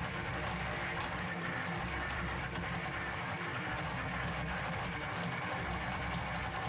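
High-powered countertop blender running steadily, churning a thick frozen mix of strawberries and bananas while the tamper is pushed down through it.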